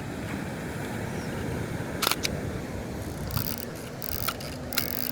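Kowa Six medium-format film camera firing: a sharp shutter-and-mirror clack about two seconds in, with a smaller click just after, then three short mechanical rasps. Steady outdoor background noise underneath.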